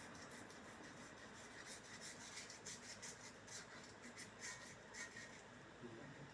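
Faint, irregular scratching strokes of something being scraped or rubbed against a rice cooker part, cleaning off black deposits and rust.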